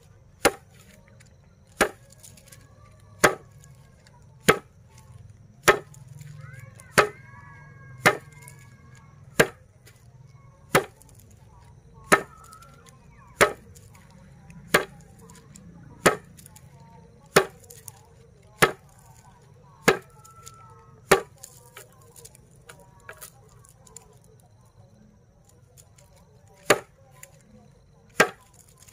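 A bundle of dried broom grass being swung overhead and beaten down onto a board, threshing the flower heads: a sharp thwack about every second and a quarter, seventeen in a row, then a pause of about five seconds before two more strikes near the end.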